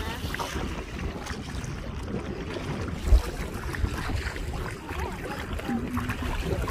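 Wind buffeting the microphone out on open water, a steady low rumble, with a single sharp thump about three seconds in.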